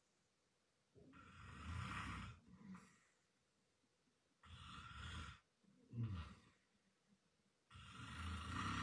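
A man snoring loudly in his sleep: three snoring breaths about three seconds apart, with quiet pauses between.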